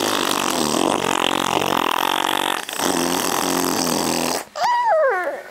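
Two long, loud fart-like blowing noises, the first about three seconds long and the second about a second and a half, followed near the end by a brief squeal that rises and falls in pitch.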